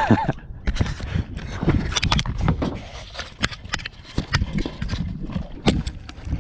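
Irregular knocks, clicks and rattles of handling noise from a head-worn GoPro camera knocking about in its mount as it comes loose.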